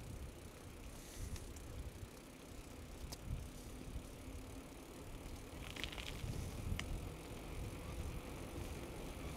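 Bicycle rolling along a paved lane, heard from a camera mounted on the bike: a steady low rumble of riding noise. A few light clicks and a short rattle from the bike come near the middle.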